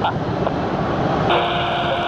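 Steady jet noise of a Boeing 737-300's CFM56 engines at taxi idle. About a second and a half in, an air traffic control radio channel opens with hiss and a steady hum but no voice.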